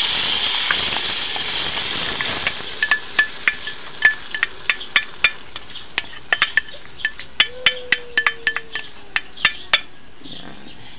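Wet ube halaya mixture poured into hot melted margarine in a metal wok, sizzling loudly at first, the hiss fading over the first couple of seconds, then settling into scattered sharp crackling pops.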